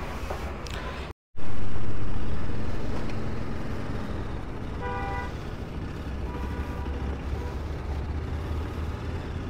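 Riding noise of a TVS Apache RR 310's single-cylinder engine at highway speed: a steady low engine drone under wind rush. The sound cuts out for a moment about a second in, comes back loud and slowly fades. A vehicle horn toots briefly about five seconds in and again, fainter, a second later.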